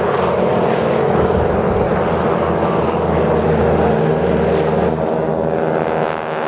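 A formation of four propeller-driven aerobatic aircraft flying past low, their engines running together in a loud, steady sound whose pitch begins to slide near the end as they pass.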